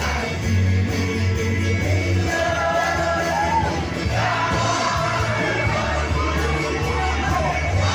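Music with singing: a voice sings a melody over long, loud bass notes that change every second or two.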